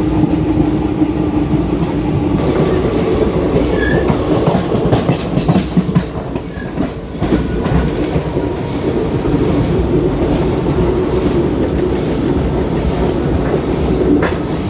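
Indian Railways express train running, a steady rumble with wheels clattering over the rail joints; the clatter is thickest from about four to eight seconds in.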